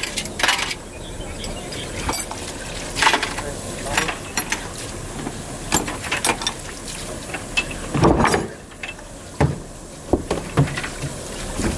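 Small metal engine parts clinking and knocking against each other and the metal basin as they are scrubbed by hand in dirty oil, in irregular scattered strokes, with one heavier knock about eight seconds in.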